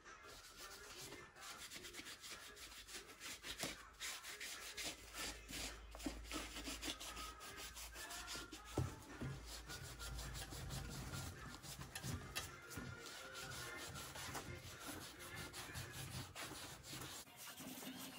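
Small cleaning sponge scrubbing the white rubber sole edge of a sneaker during foam cleaning: quick, continuous rubbing strokes.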